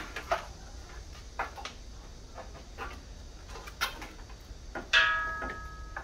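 Hand tools working on metal during bolt tightening: scattered light clicks and taps. About five seconds in comes a sharp metallic clink that rings on briefly.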